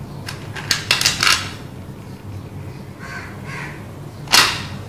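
Sharp clicks and clacks of hard roasted clay chunks being handled: several about a second in and one louder knock near the end.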